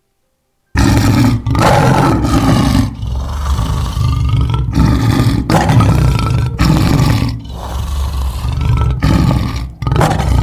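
Lion roaring: a string of about eight long, deep roars and growls one after another with short breaks, starting about a second in and cutting off abruptly at the end.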